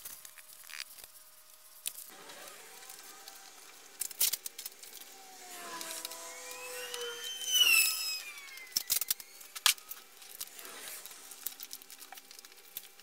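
Cardboard strips being handled and set on a plastic-wrapped plywood board: scattered light knocks and clicks, with a wavering squeak that rises and falls in pitch and is loudest about two-thirds of the way through.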